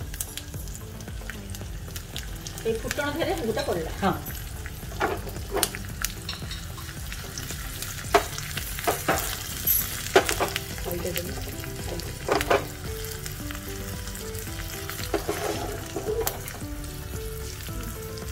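Oil sizzling in a small tempering pan as chopped green chillies fry in it for a curry's tadka, with a spoon stirring and clicking sharply against the pan a dozen or so times.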